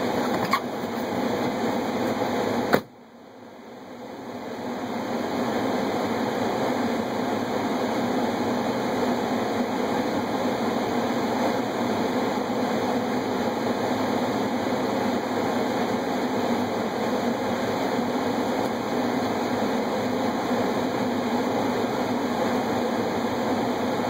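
Steady fan-like rush of a car's heater blower running inside the parked cabin of a 2012 Subaru WRX. A sharp click comes near three seconds in, after which the sound drops out and swells back up over about two seconds.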